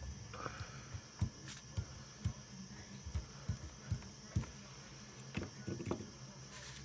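A run of soft, low thuds, roughly two a second, over a steady low hum.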